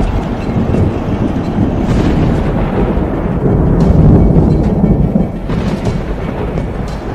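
Deep, thunder-like rumbling sound effect under dramatic background music, swelling about four seconds in.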